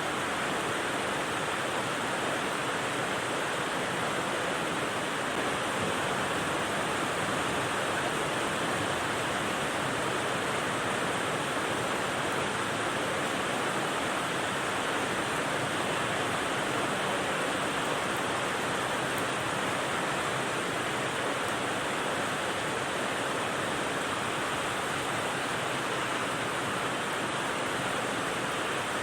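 Rain sound used as white noise: a steady, even hiss with no separate drops standing out and no change in level.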